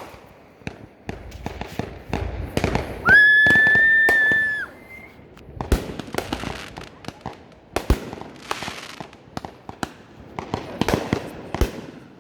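Fireworks going off: a string of sharp bangs and crackling pops, with a loud, steady, high-pitched whistle about three seconds in that lasts about a second and a half and is the loudest sound.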